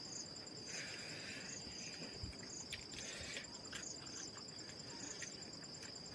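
Insects chirping steadily: a continuous high trill with a second, pulsing chirp repeating about twice a second, and a few faint clicks.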